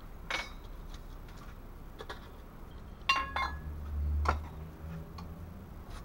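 The metal tin of a Swiss Army Notkocher 71 emergency stove being opened by hand: a few sharp metallic clicks and clinks as its lid is worked off and set down. The loudest is a ringing pair of clinks about three seconds in, followed by a short low rumble of handling.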